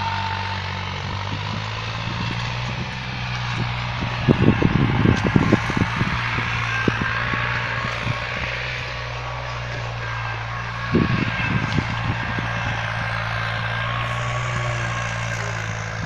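A tractor engine running steadily, a low even hum. Clusters of low thumps come about four to six seconds in and again about eleven seconds in.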